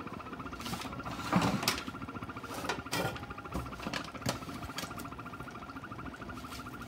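Butter melting in a stainless steel saucepan over a gas flame, sizzling with scattered sharp crackles. Under it runs a steady, fast-pulsing whine.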